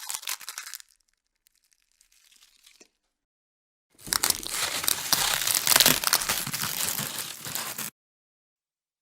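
Bone-crunch sound effect: a dense run of cracking and crunching snaps lasting about four seconds and stopping abruptly, after the crackly end of an earlier crack effect and a few faint crackles.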